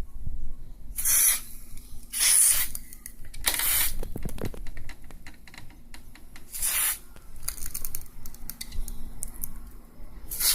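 Aerosol can of silicone spray giving about five short hisses, each around half a second long, with small handling clicks between them. The spray is lubricating an electric fan that makes an abnormal noise. A faint low steady hum runs underneath.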